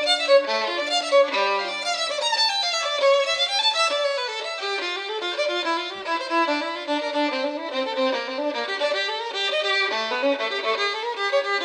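Background music: a fast instrumental piece of quick running notes, all in the middle and high range.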